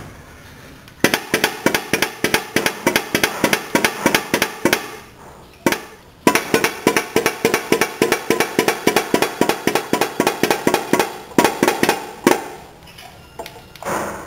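Homemade putt-putt (pop-pop) boat engine with a shoe-polish-can boiler running, popping rapidly at about five pops a second. It falters briefly about five seconds in, picks up again, and stops near the end.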